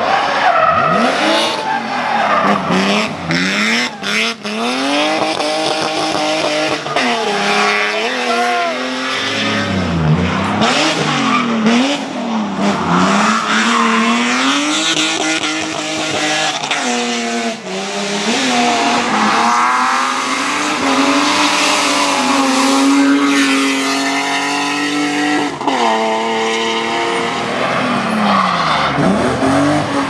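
BMW E30 and E36 race car engines revving hard through drifts, the pitch sweeping up and dropping back again and again, with tyres squealing and skidding.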